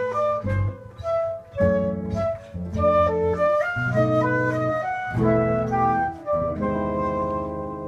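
Live instrumental music: a flute melody over electric guitar and bass, moving in quick stepping notes, then settling on a held chord that rings on and slowly fades near the end.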